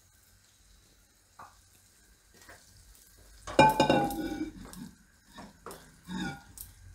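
A spatula stirring pigeon-pea curry in a pan and scraping the pan: a loud scrape with a brief ringing tone about three and a half seconds in, then a few softer scrapes.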